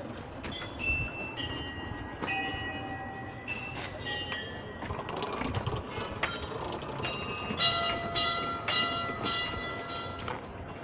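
A row of metal Buddhist prayer wheels spun by hand one after another: the drums knock and rumble as they turn, and small bells ring again and again, several pitches overlapping.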